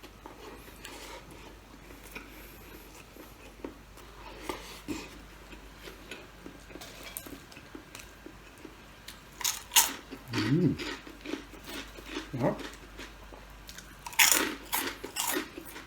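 Crunchy food being bitten and chewed close to the microphone, mukbang style. Quiet at first, with loud crisp crunches coming in from about halfway and a cluster of them near the end.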